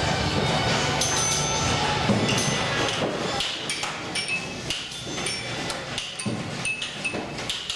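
Pinball arcade din: electromechanical pinball machines clicking and clacking with their relays and solenoids, and their chime bells ringing in short, sharp strokes that stand out more clearly in the second half.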